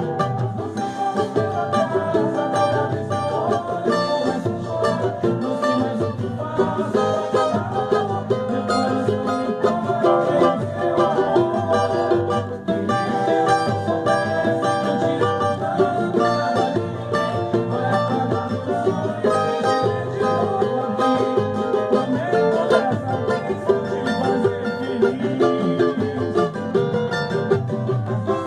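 Music on plucked strings, dense runs of quickly picked notes over a steady rhythm, played as a batuque.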